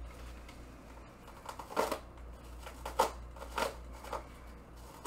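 A small knife slicing and scraping through the plastic wrapping of a package: a few short, sharp rasping cuts, starting about two seconds in.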